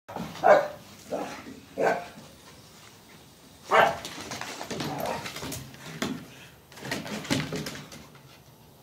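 Dogs play-fighting, barking and vocalising in short bursts: three quick ones in the first two seconds, a loud one about four seconds in, then a busier run of them that dies away near the end.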